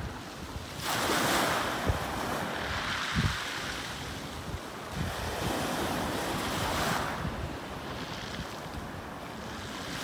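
Small sea waves breaking and washing up a pebble beach, surging about a second in and again around five to seven seconds in. Wind buffets the microphone with low thumps.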